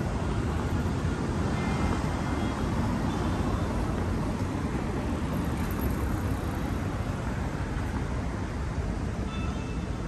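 Steady city street ambience: continuous road-traffic noise with a low rumble and no single event standing out.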